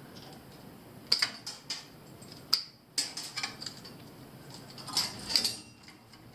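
Light clicks and clatters of small metal parts and tools being handled: a few sharp ticks about a second in, more between two and three seconds in, and two more about five seconds in.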